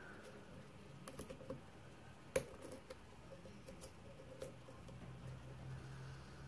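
Small, light clicks and ticks of a steel lock pick working the pins inside a brass mortise cylinder under tension, irregular and scattered, with one sharper click about two and a half seconds in.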